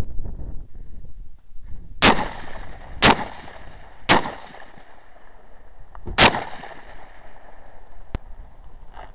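Four gunshots from a firearm being fired at targets: three about a second apart, then a fourth two seconds later, each followed by a ringing echo that dies away.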